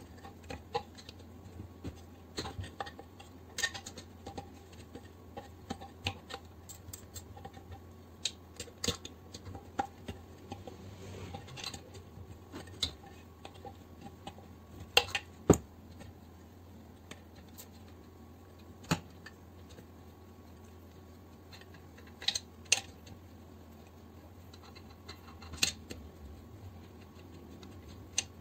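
Small ratchet wrench clicking and steel tools clinking against the metal of an air compressor's open crankcase as bolts inside it are undone, with a few sharper knocks of metal on metal. A steady low hum runs underneath.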